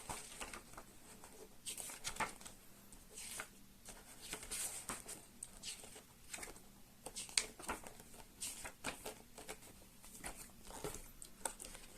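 Paper and cardboard rustling and crinkling in short irregular bursts, with light taps and handling noises, as board game components are lifted out of their box.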